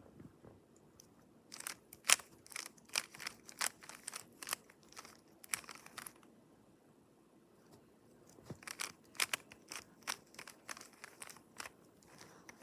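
A GAN speedcube's plastic layers being turned by hand: quick irregular clicks and crunches, two to three a second. The clicks come in two runs, starting about a second and a half in, with a pause of about two seconds in the middle.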